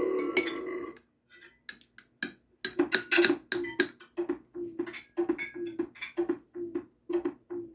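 Close-miked chewing and crunching from an eating sound-effect (mukbang-style) recording played back, coming in short crunchy bites about twice a second, after a dense second-long burst of sound at the start.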